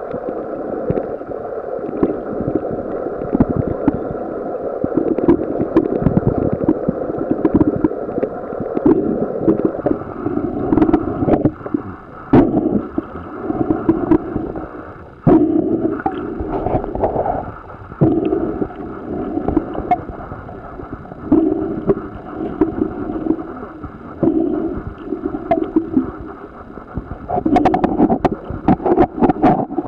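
Underwater recording of a scuba diver's exhaled bubbles gurgling and rumbling in swells every few seconds, with scattered clicks.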